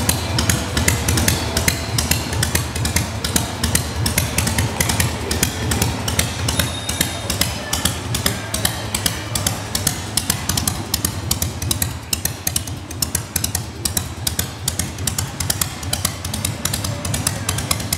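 1979 Harley-Davidson FXEF's 80 cubic inch (1340 cc) Shovelhead V-twin idling through its staggered chrome dual exhausts, a steady fast run of exhaust pulses over a low rumble.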